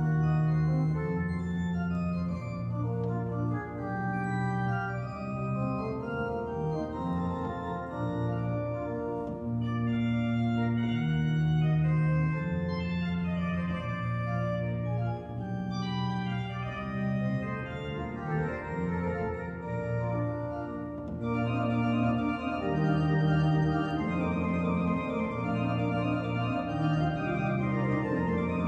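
Organ music: slow, sustained chords over held bass notes that change every second or two, with a moving upper line.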